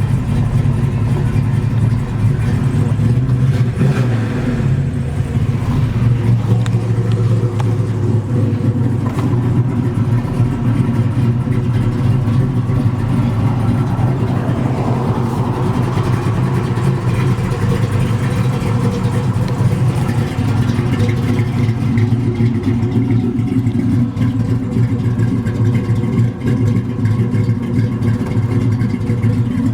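A 1954 Chevy 210's fuel-injected 355 small-block V8 with a solid-lifter cam, idling steadily with a lumpy cam note.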